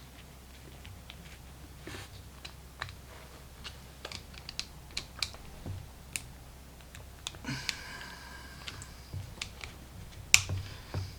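Irregular small clicks and taps of a dimple lock and small metal tools being handled, with a short scraping sound about three-quarters of the way through and one sharper, louder click near the end.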